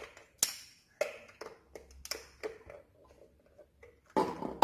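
Hard plastic parts of a baby cot mobile being handled and fitted together: a series of sharp clicks and knocks, with a louder, longer clatter near the end.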